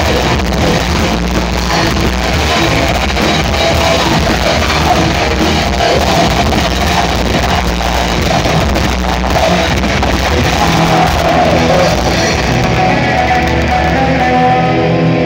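Heavy metal band playing live: heavily distorted electric guitars and bass over fast, dense drumming with crashing cymbals. Near the end the cymbals drop away and held guitar notes ring on.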